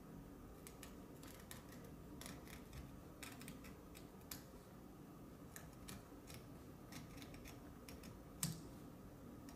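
Cutter knife blade scoring along a line in a thin wooden board, faint short scratching strokes drawn one after another to cut the board through, with one sharper click about eight and a half seconds in.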